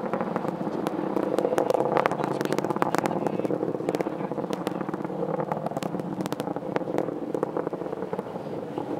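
Distant rumble of a Falcon 9 rocket's nine Merlin engines during ascent, heard from miles away: a steady low rumble shot through with sharp crackling.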